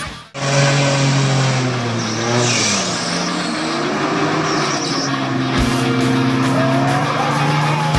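Off-road 4x4 vehicle's engine running under load, its pitch drifting up and down, with a rising whine over the last second or so.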